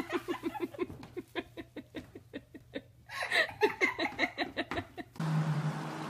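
A person giggling in quick, rapid pulses of laughter that break off and then come back louder about three seconds in. About five seconds in, the laughter gives way to a steady hum.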